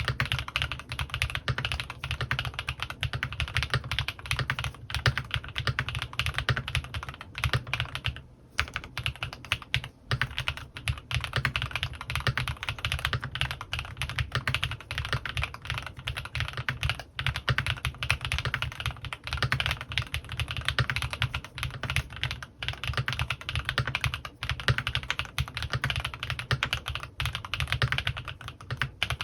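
Continuous fast typing on a custom mechanical keyboard: a CannonKeys Rekt1800 with lubed Gateron x Swagkeys Pure Berry switches, PBT keycaps and foam dampening inside the case. The keystrokes run in a dense stream with a brief pause about eight seconds in.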